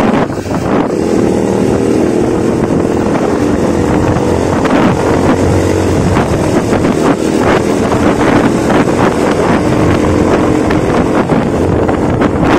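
Motorcycle engine running at road speed, with steady wind rushing over the bike-mounted microphone.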